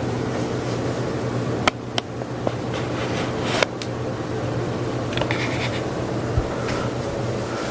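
Craftmade Max Air 29-inch ceiling fan running steadily, a low motor hum under the rush of air. A few sharp clicks sound about two seconds in and again a little later.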